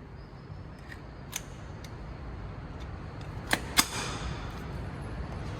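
Henry AR-7 .22 rifle being handled: a few light clicks, then two sharp metallic clacks about a third of a second apart, typical of the charging handle being pulled back and let go to chamber a fresh round after a light primer strike.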